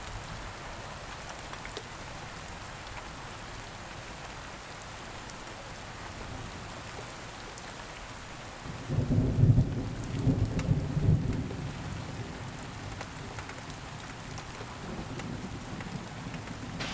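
Steady rain hissing, with a low roll of thunder that starts about halfway through and fades over about three seconds.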